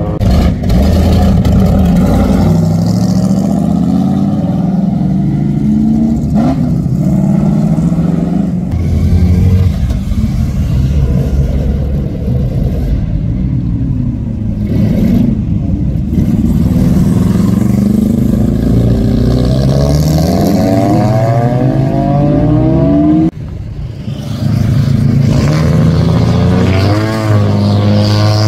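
Classic Japanese cars driving past one after another, their engines revving and rising and falling in pitch as they accelerate by. The sound breaks off briefly about 23 seconds in.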